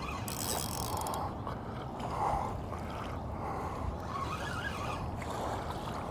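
Rumbling handling noise from an arm rubbing against the phone while a fishing reel is cranked to bring in a catfish, with faint clicking from the reel in the first second or two.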